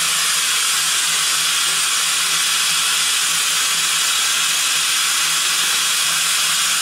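Steady, unbroken hiss of steam escaping from a standing Andrew Barclay saddle-tank steam locomotive.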